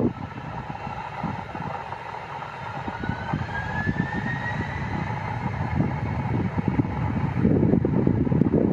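Turbofan engines of a Boeing 767-300F freighter whining as it taxis, with a whine that rises in pitch a few seconds in as the engines speed up. Gusts of wind rumble on the microphone near the end.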